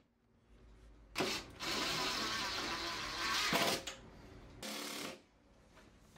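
Power drill-driver running in three bursts, driving screws at the enclosure's wall-mounting bracket: a short burst about a second in, a longer run of about two seconds, then a brief one near the end.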